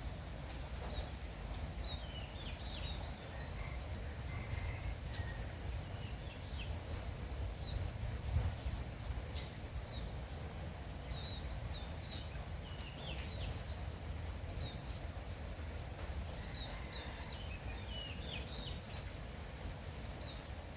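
Small birds chirping in short clusters of quick high notes every few seconds over a light drizzle, with a steady low rumble and a few sharp drip ticks.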